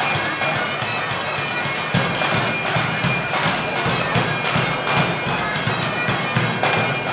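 Bagpipes playing a tune over their steady drones, with a regular beat coming in about two seconds in.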